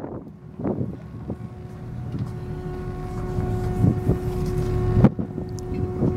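A boat's engine running with a steady hum, wind buffeting the microphone, and a few knocks, the sharpest about five seconds in.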